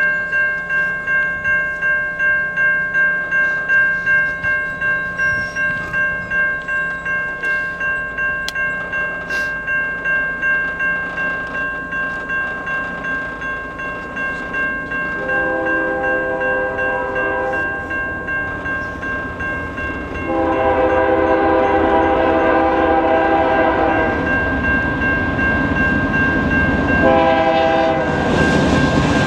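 Railway crossing bell ringing with a steady, regular pulse. From about halfway, the air horn of the approaching GE C44-9W locomotive sounds two long chord blasts and starts a third near the end, with the train's rumble growing underneath.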